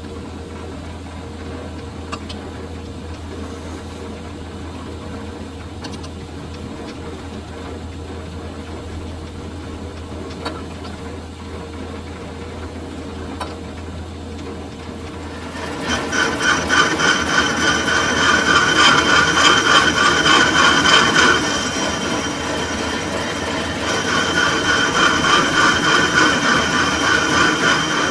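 Metal lathe running with a steady low hum and a few light clicks, then about halfway through the cutting tool bites into the spinning sugarcane juicer roller bush: a much louder, fast-pulsing scraping cut with high ringing tones, easing briefly and then resuming.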